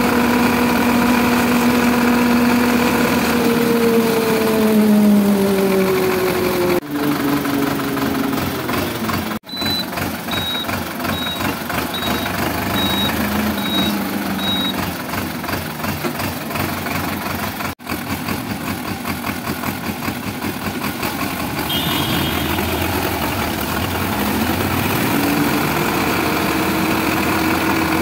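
Sonalika 750 tractor's diesel engine running as it drives, its note dropping as it slows about five seconds in and rising again near the end. A string of short high beeps sounds about ten to fifteen seconds in.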